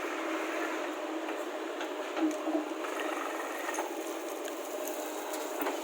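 JCB 3DX backhoe loader's diesel engine running steadily as the machine works, an even mechanical drone with all the deep bass cut away.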